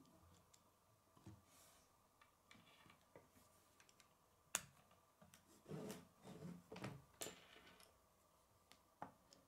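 Faint clicks and rattles of K'nex plastic rods and connectors being handled and snapped together. One sharp snap comes about halfway through, followed by a short run of clattering clicks.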